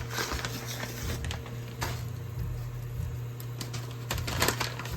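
Scattered clicks and rustling of a food package being opened and its contents poured into a pot, over a steady low hum.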